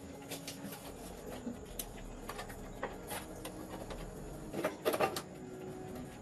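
Light rubbing and scraping with scattered small clicks, and a short cluster of louder knocks about five seconds in.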